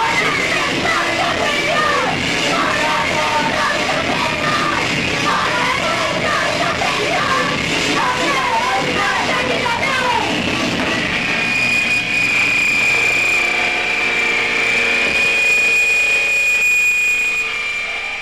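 Live digital hardcore music: distorted, noisy backing with shouted female vocals. About ten seconds in, the vocals stop and a steady high-pitched tone holds over the noise, fading near the end.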